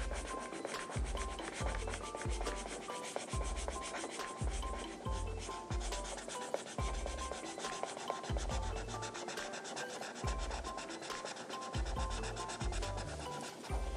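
Felt-tip marker scribbling back and forth on paper as an area is coloured in: a fast, scratchy rubbing. Underneath runs background music with a low pulsing bassline and a short repeating high melody.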